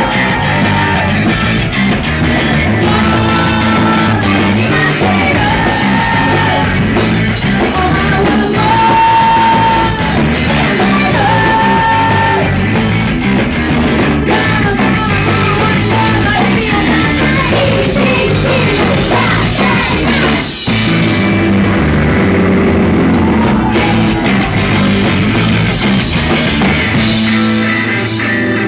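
A live math-rock band playing loudly: two electric guitars, electric bass and a drum kit, with a brief momentary stop about two-thirds of the way through.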